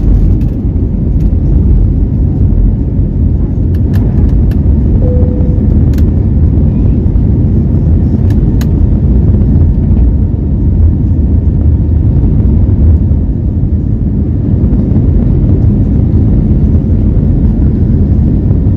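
Cabin noise of an Airbus A321neo in its initial climb just after takeoff: the loud, steady low rumble of its Pratt & Whitney PW1100G geared turbofans at climb power mixed with airflow over the fuselage, heard from a window seat over the wing. A few faint ticks in the middle.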